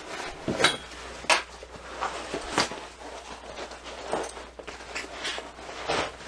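A 500D Cordura nylon haversack being handled and turned inside out: fabric rustling and scuffing, with a few sharp clicks and knocks from its hard parts.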